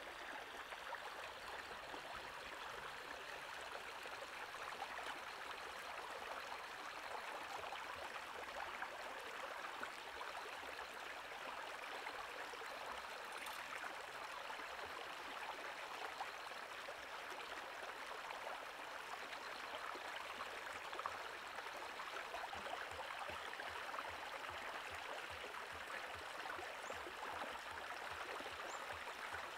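Steady rushing of a shallow stream flowing over rocks.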